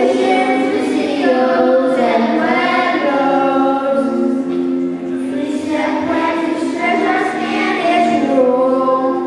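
A group of children singing a song together as a choir, holding long notes.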